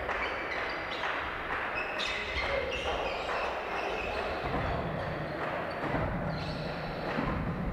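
Echoing sports-hall ambience during a volleyball game: a ball bouncing on the wooden floor, short high sneaker squeaks and the chatter of players and onlookers.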